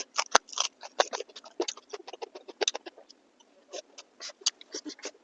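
Close-miked wet chewing and lip-smacking of a person eating beef innards and meat curry, a rapid, irregular run of mouth clicks and smacks.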